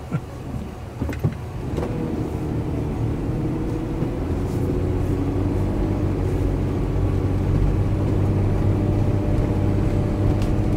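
Toyota 4Runner's 4.0-litre V6 engine pulling away and running steadily as the truck drives off, its level building slowly. A few short clicks come in the first second or so.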